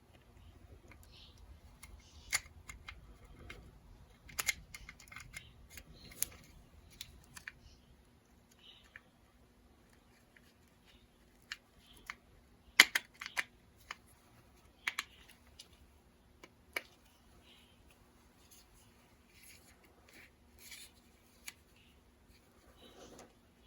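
Scattered sharp clicks and taps of small plastic radio parts being handled and snapped back together, with the loudest click a little over halfway through and a low rustle of handling in the first few seconds.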